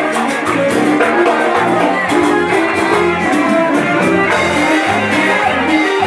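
A live band playing loud Latin dance music, with a guitar carrying the melody over a steady percussion beat, recorded close by on a phone.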